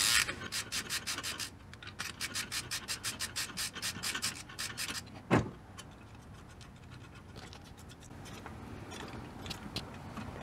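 Half-inch ratchet with an extension and 24 mm socket clicking in quick runs as a nut on a 12-valve Cummins injector is backed off, with a single knock about five seconds in. After that, faint rubbing and light clicks as the loosened nut is turned off by hand.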